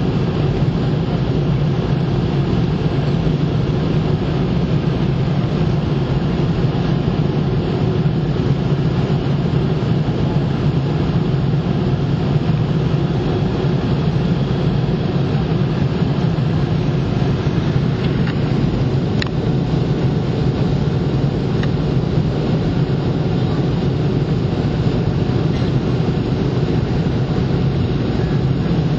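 Steady drone inside the passenger cabin of a Boeing 717 in flight: engine and airflow noise from its rear-mounted Rolls-Royce BR715 turbofans, a low hum that holds level throughout, with a faint click or two about two-thirds of the way in.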